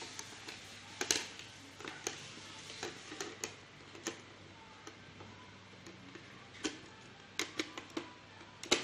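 Irregular small clicks and taps from projector parts being handled during reassembly, with a loud double click near the end.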